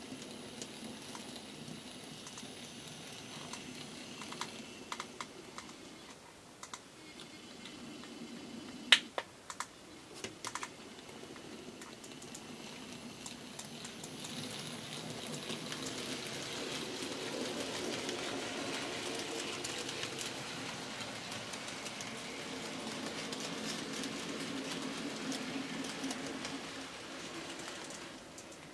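N scale model trains running: a small electric motor's hum with the wheels clicking over the rail joints and turnouts. A few sharp clicks come about nine to ten seconds in, and the running grows louder in the second half as the orange diesel shunter with its wagons passes close.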